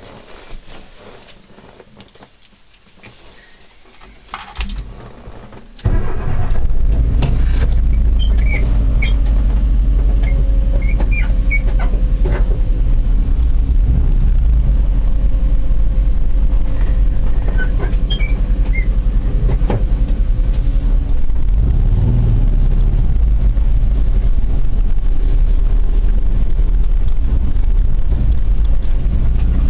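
Inside the cab of a VW bus converted to a Subaru EJ22 flat-four: fairly quiet at first with a few clicks, then about six seconds in a loud, steady rumble of the engine and the tyres on the dirt trail starts abruptly and carries on, with a few short high-pitched squeaks.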